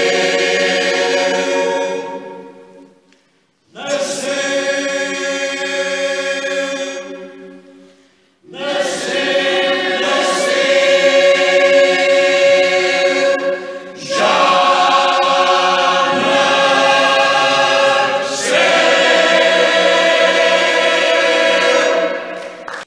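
Mixed choir of men's and women's voices singing in three phrases; the sound dies away into a brief pause twice before each new phrase starts, and the singing cuts off suddenly at the end.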